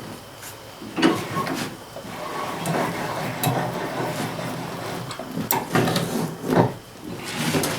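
Hand tools knocking and scraping against an old tractor tire and its steel rim while the tire bead is being broken loose. There is a sharp strike about a second in, rough rubbing noise through the middle, and a cluster of harder knocks near six seconds.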